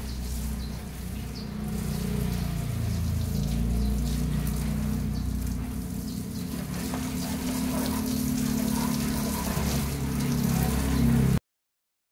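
Water spraying from a hose spray nozzle onto a car's windshield and bodywork, with a low hum underneath. It cuts off suddenly near the end.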